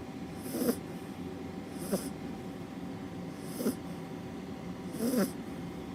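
Labrador retriever puppy snoring in its sleep: four short snores about a second and a half apart.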